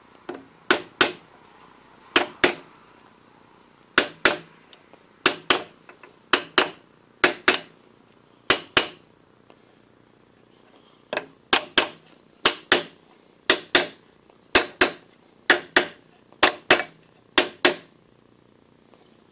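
Soft-faced mallet tapping the end of a lathe spindle to drive it out of its headstock bearings: sharp blows, nearly all in quick pairs, about one pair a second, with a short pause about halfway through.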